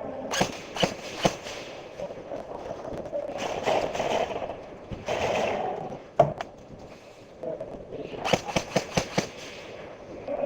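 Airsoft guns firing: three single shots in the first second and a half, another about six seconds in, then a quick string of about seven shots near the end.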